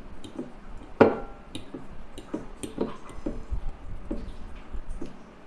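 Metal fork clinking and scraping against a ceramic bowl of pasta, a string of light ticks with one sharper, ringing clink about a second in.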